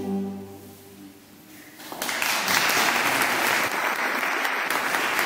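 The last chord of a choir and string ensemble dies away, and about two seconds in an audience breaks into steady applause.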